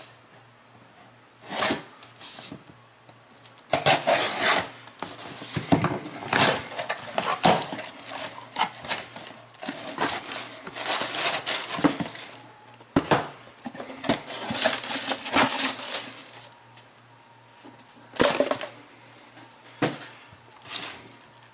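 A cardboard shipping box being opened by hand: a knife cutting the packing tape, flaps pulled open, packing paper rustling and an inner cardboard box lifted out and set down on a table. It comes as a run of short scrapes, rustles and knocks, busiest in the middle, with a lull before a last few handling knocks.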